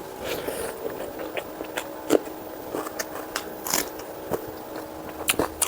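A person eating close to the microphone: wet chewing broken by irregular sharp, crisp crunches, the loudest about two seconds in, near four seconds and near the end.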